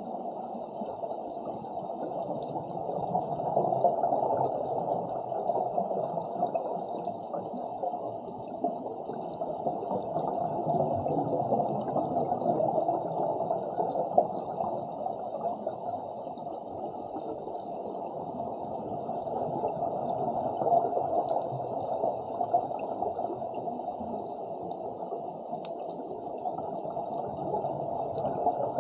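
Muffled underwater ambience picked up by a camera submerged in the sea: a continuous watery, gurgling rush that swells and eases every several seconds.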